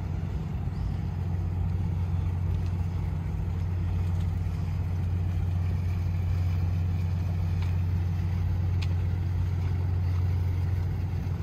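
Steady low machinery hum from a moored patrol ship, the even drone of onboard engines or generators running while alongside.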